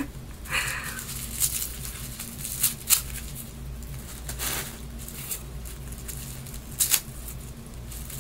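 Paper wrapping and tissue paper being torn and rustled by hand, in short scattered bursts, over a steady low hum.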